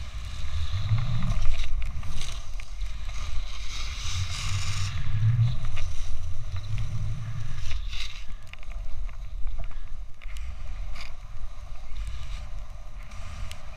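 Snowboard sliding through deep fresh powder: a steady hiss of snow, with wind rumbling on the microphone.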